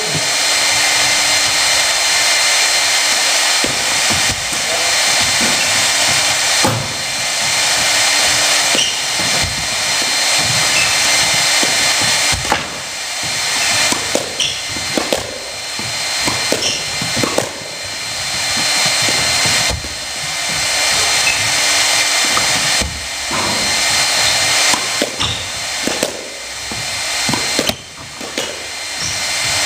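Squash rally: the ball is struck by racquets and hits the court walls in sharp knocks every second or two, over a loud, steady rushing hiss.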